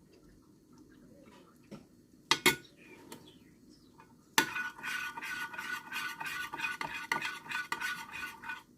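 A utensil knocks twice on a bowl, then stirs briskly for about four seconds with rapid clinking and scraping, mixing yogurt and milk together.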